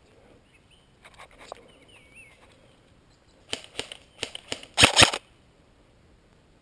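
Airsoft gun firing a quick run of semi-automatic shots: about eight sharp, irregular snaps over under two seconds, the loudest two close together near the end. Faint chirps come before them.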